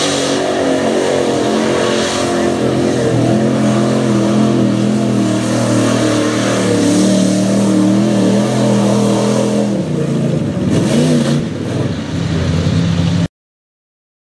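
Mud-bogging pickup truck's engine revving hard at high rpm while churning through a mud pit. The pitch wavers, dips and climbs again near the end, then the sound cuts off suddenly.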